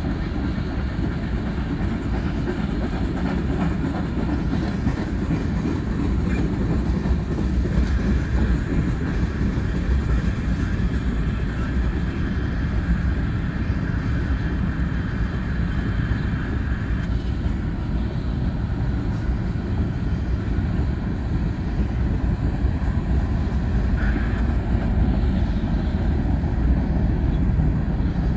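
Freight cars of a long mixed BNSF freight train rolling past: a steady rumble of steel wheels on rail, with clacking over the rail joints. A faint high whine rises out of the rumble for several seconds in the middle.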